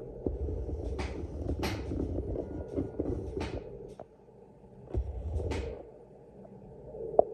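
Handling noise from the camera being moved and reframed: a low rumbling and rustling with several short scrapes, twice, then a single sharp click just before the end.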